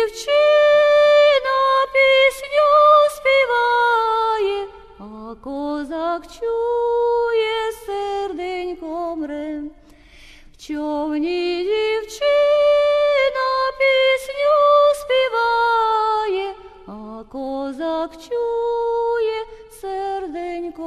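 A woman singing a slow song in Ukrainian alone, without accompaniment, in held notes with short pauses between lines; the same melodic phrase is sung twice.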